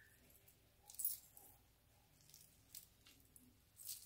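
Faint, light clinks of metal necklace chains and pendants being handled: a few about a second in and again near the end.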